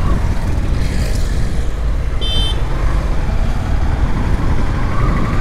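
Yamaha FZS V3 motorcycle on the move: a steady rumble of its single-cylinder engine and wind. A brief high-pitched beep sounds about two seconds in.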